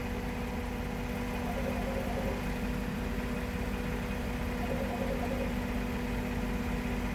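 Steady mechanical hum with a constant low tone that does not change, with no knocks or other events.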